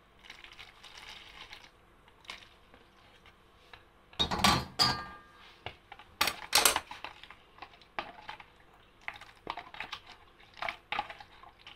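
Milk poured from a small steel saucepan into a plastic bowl, a faint splashing hiss, then steel pan and spoon clattering: two loud knocks about four and six seconds in, followed by lighter clicks and scrapes of a spoon stirring in the bowl.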